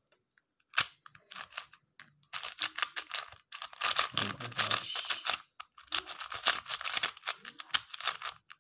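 QiYuan MS Pro 4x4 speed cube being turned quickly by hand, its plastic layers clicking and clacking. There is one sharp click about a second in, then two long runs of rapid turns with a short pause between them.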